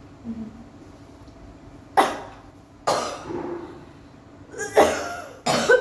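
A person coughing four times in short, sharp coughs as an effective-cough exercise for COPD, meant to open the airway and push sputum up from the lungs.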